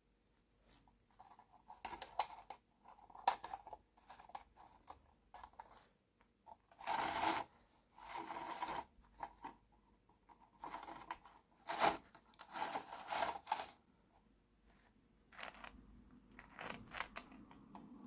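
Hands unboxing a miniature plastic toy kitchen set: packaging rustling and tearing, and small plastic pieces clicking and scraping, in irregular bursts. The loudest bursts come about seven and twelve seconds in.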